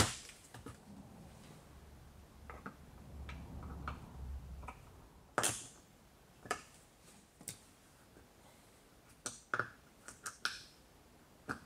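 Plastic car door trim being pressed and screwed back into place. A low rubbing sound runs for a few seconds, then comes a string of sharp plastic clicks and taps about a second apart.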